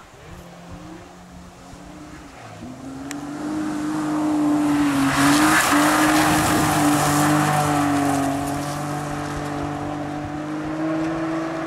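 BMW rally car approaching, passing and driving off on a gravel stage. Its engine note grows louder to a peak about five seconds in, with a hiss of gravel spray from the tyres, then fades as it pulls away.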